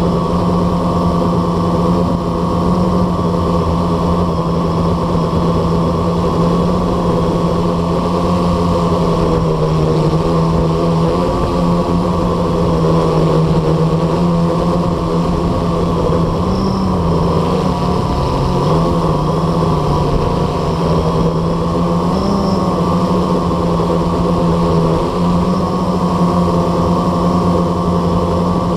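Blade 350 QX quadcopter's brushless motors and propellers humming steadily in a hover, heard from its own onboard camera. The pitch dips and rises briefly a few times as the motors correct.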